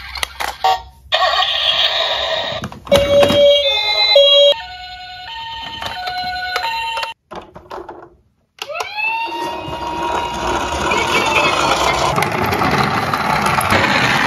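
Battery-operated toy emergency vehicles playing electronic siren effects one after another: stepped tones switching back and forth between pitches, a short break, then a rising tone that opens into a steady noisy electronic sound growing louder. Clicks of the plastic toys being handled come at the start.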